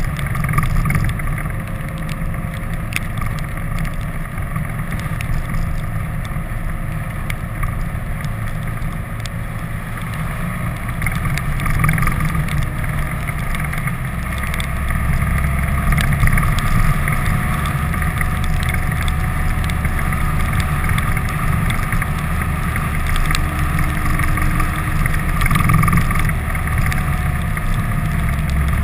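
Vehicle driving along a road, filmed from outside: a steady low rumble of wind and road noise, with a faint engine tone that rises and falls.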